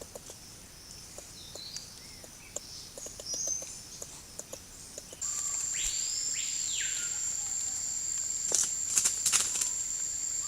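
Rainforest ambience of insects and birds: faint chirps and ticks at first, then about five seconds in a louder steady high-pitched insect drone starts, and a bird gives a sweeping call that rises and falls, twice. A few sharp clicks come near the end.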